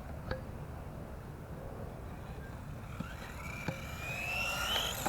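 Electric motor of an S912 remote-control truggy whining, rising in pitch as it speeds up from about three seconds in, with a few light knocks over a steady low rumble.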